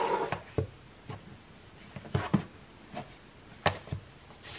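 A cardboard watch-band box handled and turned over on a wooden tabletop: a brief rustle, then a scattering of light taps and knocks as it is gripped and set against the table.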